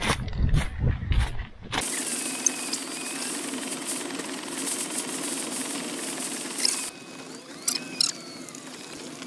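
Footsteps on loose scree for about the first two seconds. Then the steady hum of a Land Rover Discovery 3's TDV6 V6 diesel, heard from inside the cabin as it drives slowly along a gravel track. It turns quieter later on, with a few sharp knocks and rattles.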